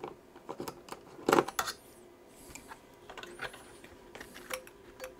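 A screwdriver clicking and tapping against screws and the metal bracket inside an opened 2011 iMac as the screws are loosened. There are scattered small clicks, and the loudest is a sharp knock about a second and a half in.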